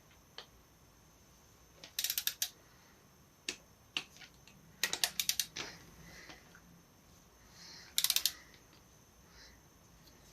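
Ratchet of a torque wrench clicking in short quick runs, three bursts of rapid clicks with a few single clicks between, as the connecting rods' big-end cap nuts are tightened to 24 Nm.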